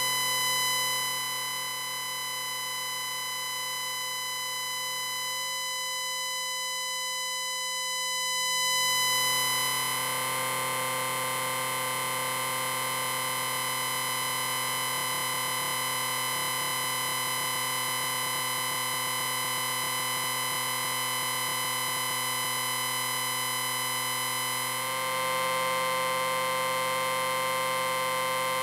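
Synthesized sci-fi sound effect: a sustained electronic drone of many steady ringing tones stacked together. It swells about a third of the way in and grows brighter near the end.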